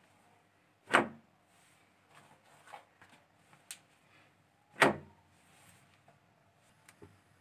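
Kitchen handling noises: two loud, sharp knocks, about a second in and again near five seconds, with a few lighter clicks and taps between them.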